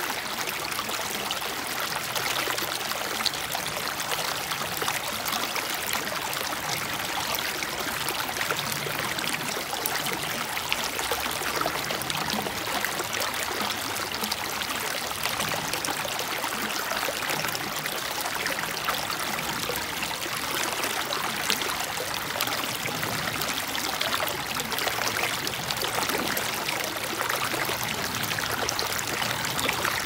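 Shallow stream running over and between rocks, a steady rushing and babbling.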